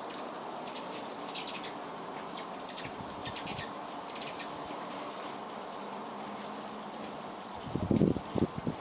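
Hummingbirds chirping at a feeder: clusters of short, high, squeaky chip notes, the busiest stretch in the first half. Behind them runs a steady high-pitched insect trill, and a brief low whirr comes near the end.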